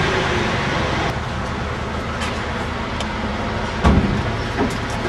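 A vehicle engine running steadily, with a single thump about four seconds in.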